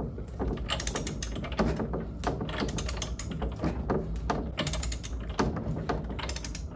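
Click-type torque wrench ratcheting on a socket: short runs of quick pawl clicks recur every half second to a second as the handle is worked back and forth. The pinion nut is being drawn up and is not yet at its 65 setting, so there is no release click.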